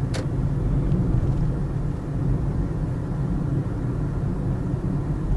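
Car cabin noise while driving: a steady low engine and road rumble, with a single short click just after the start.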